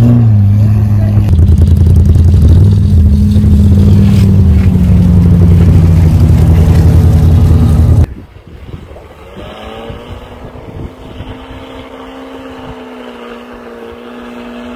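Lamborghini Aventador's V12 engine running loud and close while the car, fitted with rubber snow tracks, drives through snow. About eight seconds in the sound cuts abruptly to a quieter, steady engine drone from the car farther off.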